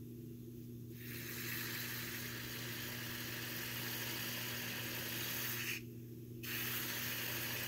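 Liquid nitrogen boiling off around a beaker of gasoline, a steady hiss that starts about a second in, breaks off briefly near the end and then carries on.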